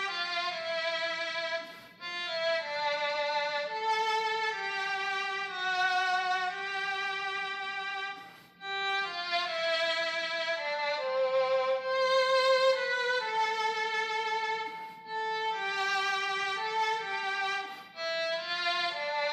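Aerophone digital wind instrument playing a slow solo melody of long held notes with vibrato. The phrases are broken by short breaths about 2 and 8.5 seconds in, and again near 15 and 18 seconds.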